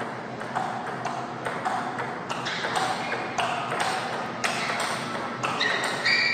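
Table tennis rally: a ping-pong ball clicking off the paddles and the table in quick alternation, about two hits a second.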